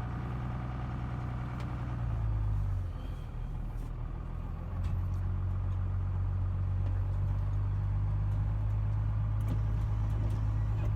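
1994 Ram 3500's diesel engine, a Cummins inline-six turbodiesel, running as the pickup is driven. Its low note eases off about three seconds in and picks up again about two seconds later.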